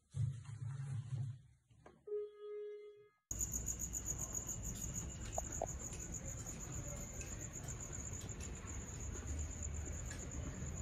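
Insects trilling steadily in a high, fast-pulsing chorus that cuts in abruptly about three seconds in. Before it come a short low hum and a single held tone about a second long.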